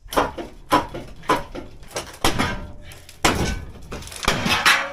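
A string of irregular bangs and knocks from stripping out a truck interior during demolition, with parts being struck and pried loose.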